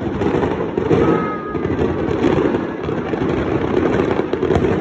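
Fireworks going off in a dense, continuous crackling barrage, with a brief whistle about a second in.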